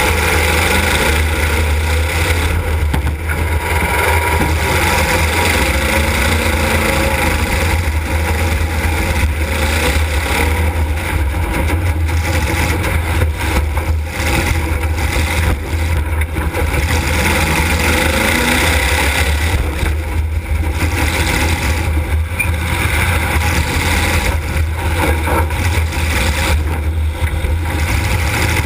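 Demolition derby car's engine running loud throughout, with a heavy low rumble, its pitch rising and falling as it revs up and down, heard from inside the car.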